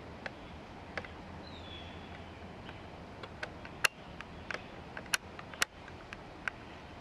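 Irregular sharp clicks and ticks over a steady low background noise, with a few louder snaps between about four and six seconds in, and a faint short falling whistle about one and a half seconds in.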